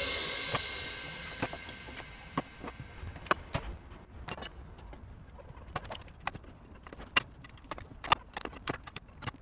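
Scattered sharp metallic clinks and knocks of hand tools, including hammer strikes, on the gear housing of a Chaika outboard motor during disassembly, a few of them louder than the rest. A tail of background music dies away in the first second or so.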